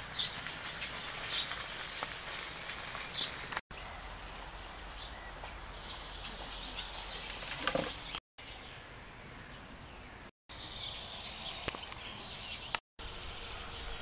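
Small birds chirping: a run of short, high chirps for the first few seconds, more near the end, over steady outdoor background noise. The sound cuts out briefly four times.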